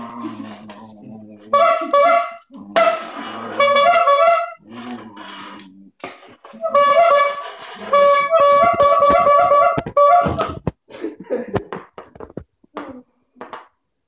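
Rubber-bulb squeeze horn honking as a dog bites and presses the bulb: a run of reedy honks, some short and some long and wavering, which stop about ten seconds in.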